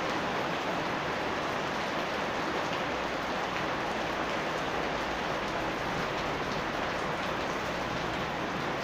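Steady rain falling on a house yard, an even hiss with scattered drop ticks.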